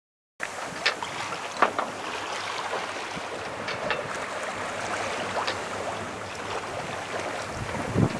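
Water splashing and sloshing against the hull of a small sailing yacht at sea, with wind noise on the microphone and a faint low steady hum underneath.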